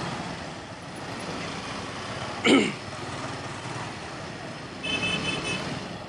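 Motorcycle riding slowly in dense city traffic: steady engine, tyre and traffic noise. About two and a half seconds in comes a short, loud sound sliding down in pitch, and near five seconds a quick run of high-pitched beeps.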